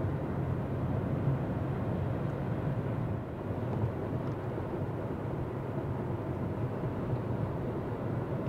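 A car driving along: steady road and engine noise, an even rumble with no distinct events.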